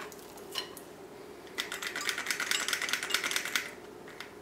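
A rapid run of light plastic clicks and scrapes for about two seconds from a plastic ice cream scoop as it is worked through a ball of mashed potato and its release mechanism is worked.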